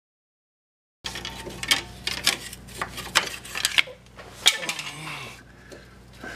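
After about a second of dead silence, a string of sharp clinks and knocks from parts and tools being handled under a vehicle, over a faint steady hum.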